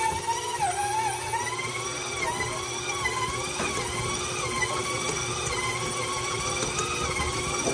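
KitchenAid stand mixer running at a faster setting, its dough hook kneading bread dough in a stainless steel bowl: a steady motor whine whose pitch wavers slightly.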